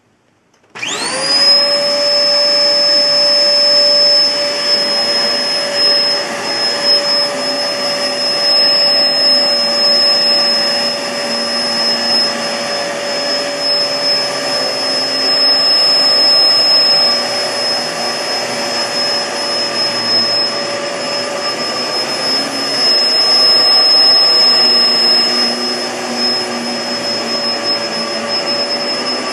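Kenmore CrossOver Max bagless upright vacuum with its SIP Cinderson blower motor switched on about a second in, spinning up quickly with a rising whine. It then runs steadily with a high motor whine over loud rushing airflow.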